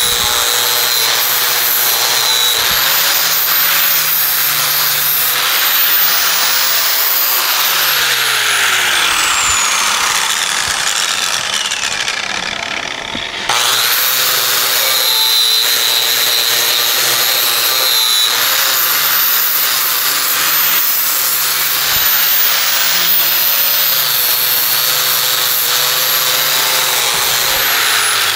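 Angle grinder with a flap disc grinding the end of a steel truck frame rail, a steady loud grinding over a high motor whine. Around a third of the way in the whine slides down in pitch as the grinder winds down, and about halfway it cuts back in at full speed and grinds on.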